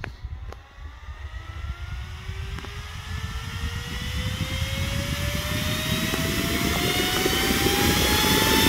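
Homemade high-speed jet fan spinning up on its small electric motor: a whine that rises steadily in pitch over several seconds, over a growing rush of air, getting louder as it speeds up.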